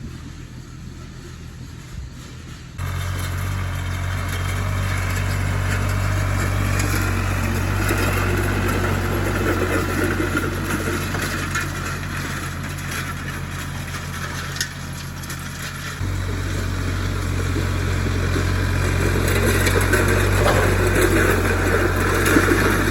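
Farm tractor engine running steadily under load while pulling a drag across a disked field, with a noisy scraping rush from the drag over the soil. It gets suddenly louder about three seconds in.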